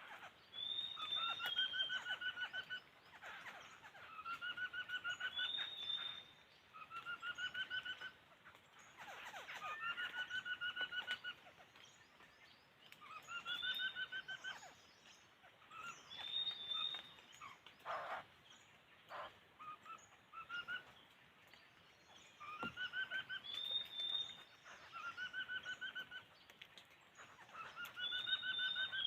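Laughingthrush calling over and over in short, fast, rattling phrases of repeated notes, roughly one phrase every two to three seconds. A couple of brief knocks come in about two-thirds of the way through.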